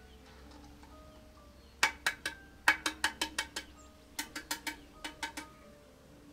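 A run of sharp knocks, about sixteen in under four seconds in small uneven groups, each ringing briefly, over faint background music.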